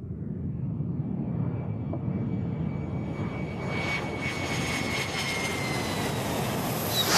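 F-16 fighter's jet engine, growing steadily louder as the jet passes on the runway. A high whine in it falls slightly in pitch.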